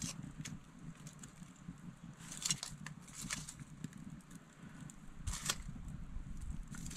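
Kindling fire of paper and thin wood sticks crackling in a charcoal hearth, with scattered sharp pops and clicks over a low steady rumble.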